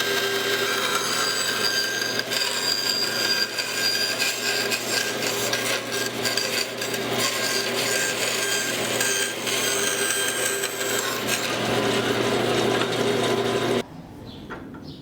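Power grinder running steadily while grinding steel, with a continuous abrasive hiss over a steady motor hum. It cuts off abruptly near the end.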